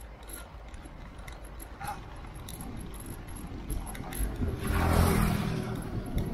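Riding noise on a bicycle-mounted camera: wind rumbling on the microphone and small rattles and clicks from the bike, with a louder swell of noise from about four and a half to five and a half seconds in.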